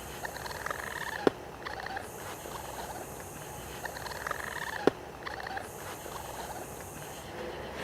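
Raccoon giving short, rapid trilling calls several times over. Two sharp clicks, about a second in and about five seconds in, are the loudest sounds, and a high hiss switches on and off behind the calls.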